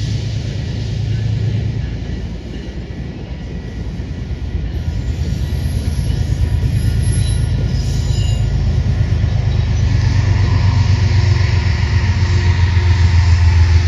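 A train rumbling on the rails, a low heavy sound that grows steadily louder from a few seconds in, with a faint high wheel squeal around the middle.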